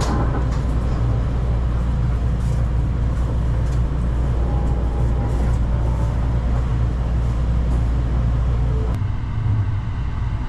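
Steady low rumble and hum inside a moving 285-series Sunrise Express sleeper train as it pulls slowly out of the station, with a few faint clicks from the rails. About nine seconds in, the sound changes abruptly to a quieter, thinner hum inside the carriage.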